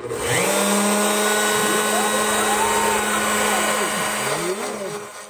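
CNC router spindle running at a steady high speed while the stepper motors whine in rising and falling glides as the gantry moves the 1/8-inch end mill through the cut. It starts and stops abruptly.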